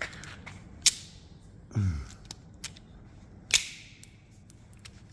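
Lazy-tong pop rivet gun squeezing a rivet: two sharp cracks, about a second and three and a half seconds in, with lighter clicks between. The rivet is too short and grabs only at its very end, so the pull tears it rather than setting it.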